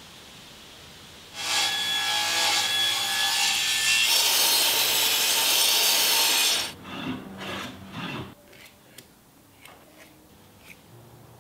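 Power saw with a circular blade starting up about a second in, its motor whining, then cutting through a hardwood block from about four seconds in. The cut ends and the motor runs down, followed by faint taps and scratches of a pencil and steel square on the wood.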